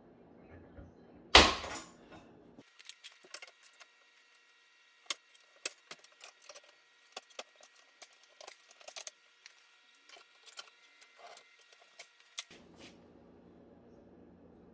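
A single sharp knock, then a run of irregular light clicks and clinks of small hard objects being handled.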